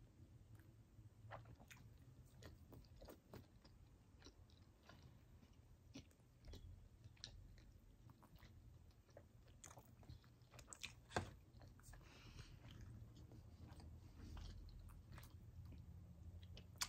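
Faint chewing of chicken wing meat, with scattered small mouth and finger clicks; one sharper click about eleven seconds in.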